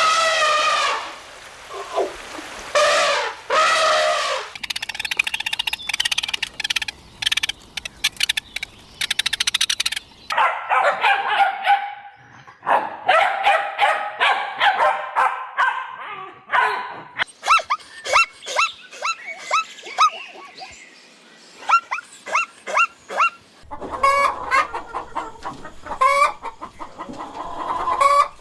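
Chickens clucking in runs of short calls. A few long, pitched animal calls open it, and a stretch of rapid sharp clicks follows a few seconds in.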